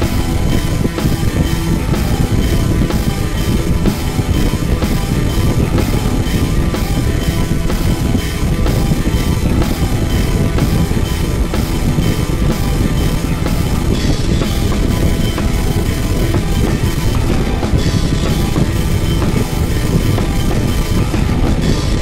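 Background rock music with guitar and a steady drum beat.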